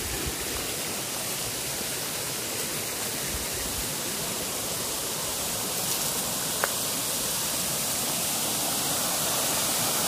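Waterfall rushing steadily, growing slightly louder toward the end.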